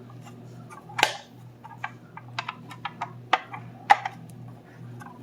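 Hard plastic parts clicking and tapping against each other as two interlocking pieces are handled and slid together by their pegs and slots: a dozen or so sharp, irregular clicks, the loudest about a second in and near four seconds in. A faint steady low hum runs underneath.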